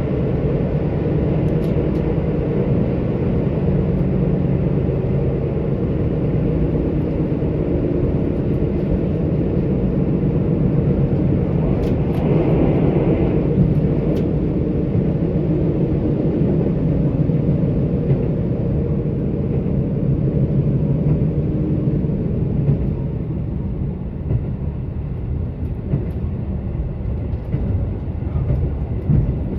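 KiHa 85 diesel railcar running at speed, heard from inside the car: the steady drone of its Cummins diesel engine over the rumble of wheels on rail. It swells for a couple of seconds about twelve seconds in and eases slightly in the last few seconds.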